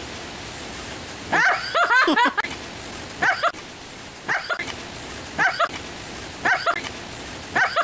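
Small dog barking excitedly in play with short, high yaps: a quick run of several about a second and a half in, then single barks roughly once a second.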